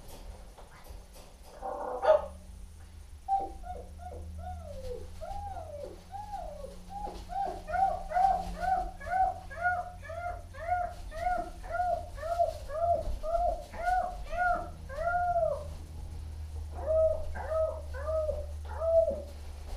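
Goldendoodle puppy whimpering in a long, even run of short yips that rise and fall in pitch, about two a second, then after a short pause four more near the end. A brief rustling thump comes about two seconds in.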